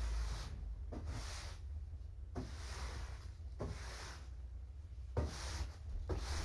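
Repeated hissing scraping strokes, about one every second or so, each lasting around half a second and some starting with a soft knock, over a steady low hum.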